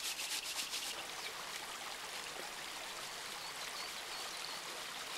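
Sand and grit shaken in a round sieve pan, a rhythmic rasping for about the first second, then a shallow stream flowing steadily.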